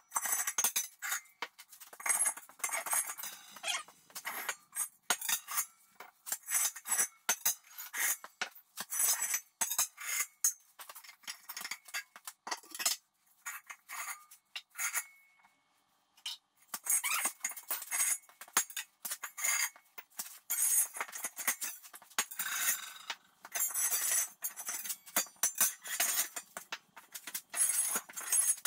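Steel disc blades and spacer spools of an International Model 48 disk harrow clanking and ringing as they are pulled off the gang bolt one at a time and set down on a concrete floor. There is a short lull about halfway through.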